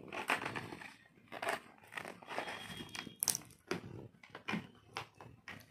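Plastic-wrapped walkie-talkie retail box being handled and pried open by hand: crinkling of the wrapping with scattered taps and scrapes of the packaging.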